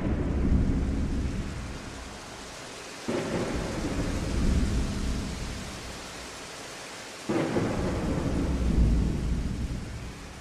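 Thunder rumbling over steady rain: one rumble fading early on, then two sudden claps about three and seven seconds in, each swelling and dying away over a couple of seconds.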